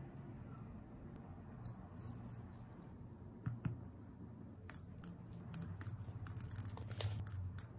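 Small hard taps and clicks of a resin shaker frame being handled and set down on a tabletop: a couple of sharp taps about three and a half seconds in, then a quick run of small clicks through the second half, over a low steady hum.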